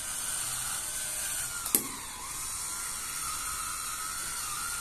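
Electric wine opener's small motor whining steadily as it drives its corkscrew into the cork of a wine bottle, with one sharp click a little under two seconds in; the whine dips in pitch just after the click, then rises again.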